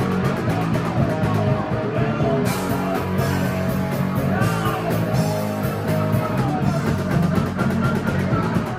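Live rock band playing loudly: amplified electric guitar, a drum kit, and vocals sung into a microphone, continuously with no break.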